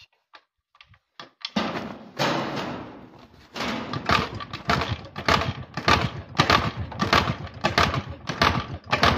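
Jawa 350 two-stroke twin being kicked over on its kickstarter, a regular mechanical thumping about two to three times a second; the engine turns over without catching.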